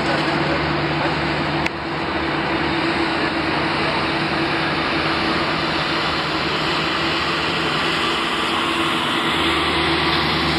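Steady, loud mechanical drone with a constant low hum from a parked airliner and its ground equipment on the apron, with a brief click about two seconds in.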